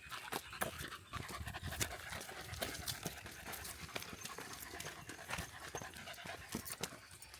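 A dog panting, with short irregular taps and clicks around it.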